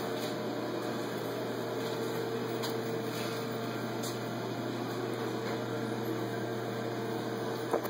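Lochinvar Armor high-efficiency gas water heater fired and running: a steady hum with a low drone and a faint higher tone held throughout.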